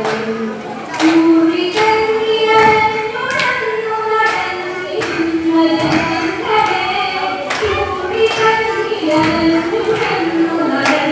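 A group of women singing a Thiruvathirakali song in unison, in long held notes, with regular hand claps a little under a second apart keeping the dance rhythm.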